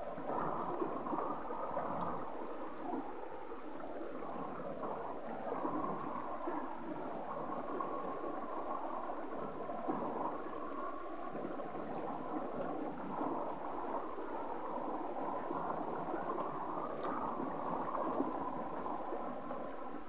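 Shallow rocky stream burbling steadily as water runs over and between stones, with a steady high-pitched whine above it.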